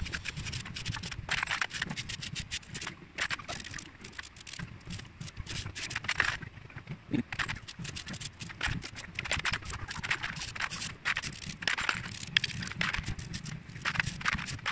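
Stiff plastic-bristle scrub brush working back and forth over small gold-plated motorcycle bolts in soapy water, making irregular scratchy strokes. Now and then there is a sharp click or knock as a bolt is handled or dropped into a plastic basin.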